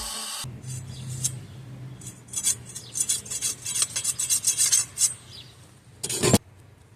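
Quick, uneven scraping strokes on the steel of a forged 5160 knife blade, several a second, over a low steady hum. Near the end comes a brief loud burst of noise.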